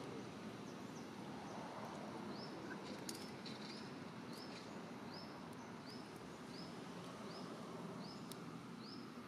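A short, high chirping call repeated at an even pace, a little faster than once a second, starting about two seconds in, over a steady outdoor background hiss.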